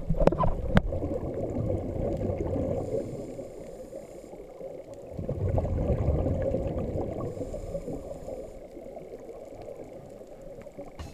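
Scuba breathing heard underwater through a camera housing: exhaled bubbles gurgling out in two long surges about five seconds apart, each followed by a brief hiss of the regulator. A few sharp knocks sound right at the start.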